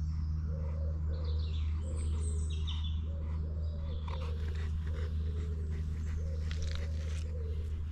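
Dog whining softly in short repeated notes, about one to two a second, over a steady low hum, with birds chirping briefly in the trees during the first few seconds.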